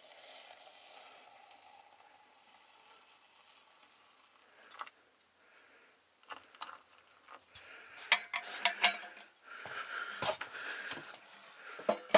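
Aluminium kettle of boiling water hissing with steam, fading away over the first couple of seconds. After a lull, a run of sharp clicks, knocks and clatter from objects being handled, loudest a little past the middle.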